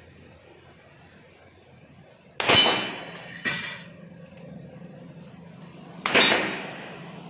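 Two 9mm pistol shots about three and a half seconds apart, each a sharp bang ringing off the range. A fainter bang comes about a second after the first, and a low steady hum starts just after it.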